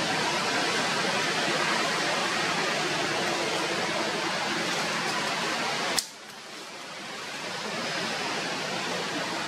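A steady, even hiss of outdoor background noise. About six seconds in, a sharp click cuts it, and the hiss drops sharply before slowly building back up.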